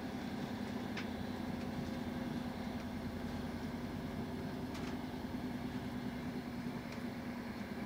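Steady running noise of an Intercity train at speed, heard from inside a passenger coach: an even rumble with a constant low hum and a few faint clicks.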